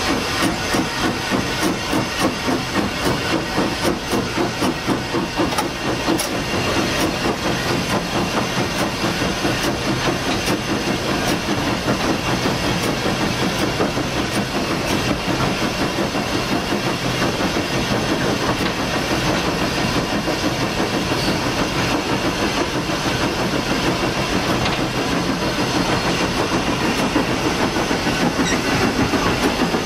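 Hunslet steam locomotive working under steam, heard from its own cab: a rapid, even beat of exhaust chuffs from the chimney over a constant hiss of steam.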